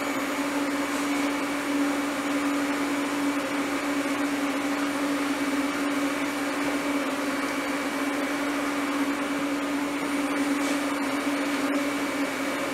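Water chiller of an induction forge running: a steady machine hum with a rushing noise and one fixed tone, the cooling loop being run to test for water leaks.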